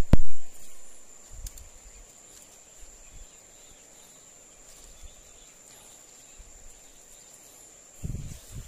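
A loud knock at the very start, then a quiet stretch filled by a steady high-pitched insect drone, with faint rustles and bumps of vegetation being handled.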